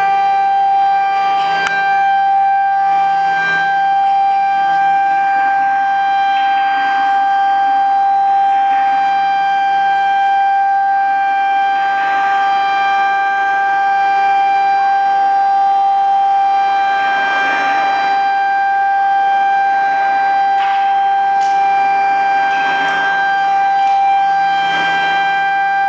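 Spindle of a Quick-Fulltek K6100A small CNC router running with a steady high-pitched whine, with soft swells of cutting noise every few seconds.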